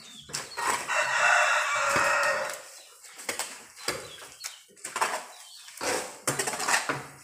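A rooster crows once for about two seconds near the start. After it comes a run of short scrapes and knocks from a mammoty (hoe-spade) turning a wet cow-dung mix in a concrete tank.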